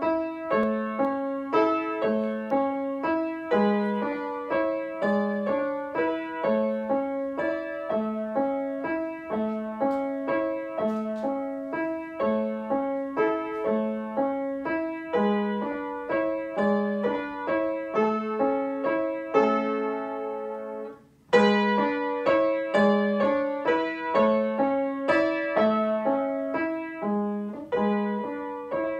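Upright piano being played: an evenly paced piece with a repeating pattern of low notes under the melody. About two thirds of the way through the notes die away for under a second, then the playing starts again with a loud chord.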